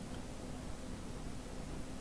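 Quiet room tone: a steady hiss with a faint low hum and no distinct events.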